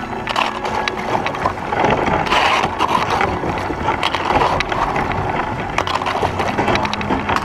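Sea kayak hull grinding and scraping through floating river ice, with many short knocks and crackles as the ice breaks and rubs along the boat.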